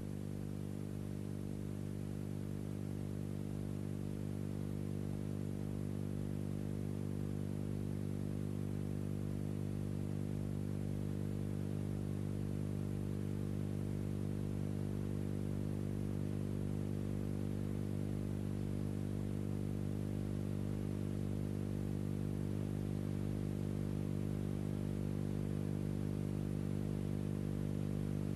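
Steady low hum with many evenly spaced overtones and a faint hiss, unchanging in pitch and growing slightly louder over the stretch.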